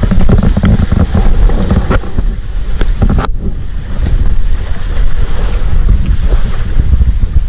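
Wind buffeting the camera microphone in a heavy, steady rumble, over small waves lapping on a sandy shore. The sound breaks off for an instant a little over three seconds in.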